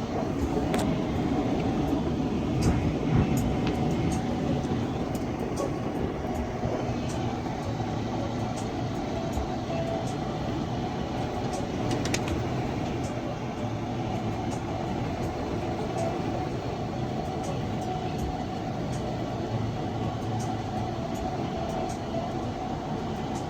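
Steady road noise heard from inside a car driving at highway speed: a constant drone of tyres and engine, with faint scattered ticks.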